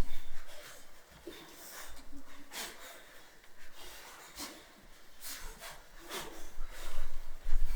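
Short, irregular breathy puffs and sharp snort-like exhalations from people's breath, with low rumbling thuds at the start and again near the end.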